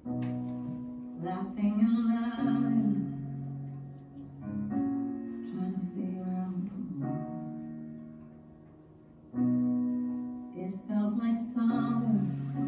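Slow music: sustained keyboard chords that start afresh every four to five seconds and fade between, with a singing voice over them.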